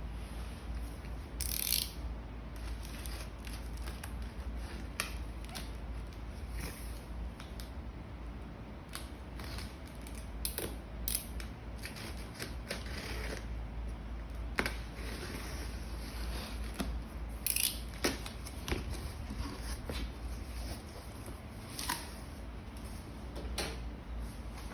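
Handling noises of unboxing: scattered clicks, short scrapes and rustles of packaging being opened, over a steady low hum.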